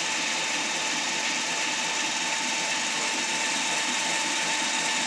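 FS D.445 diesel locomotive running steadily at a standstill: an even engine-and-cooling-fan hiss with a steady thin whine over a low rumble.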